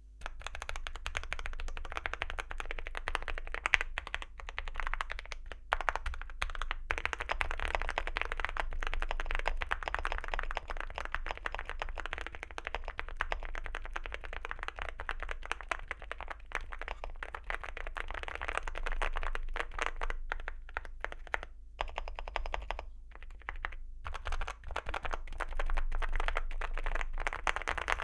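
Continuous fast typing on a Leobog Hi75 mechanical keyboard with factory-lubed Gateron Milky Yellow Pro linear switches and Cerakey ceramic keycaps, giving a thocky sound. The keystrokes form a dense, steady clatter, broken by a few short pauses, the longest about a second long well past the middle.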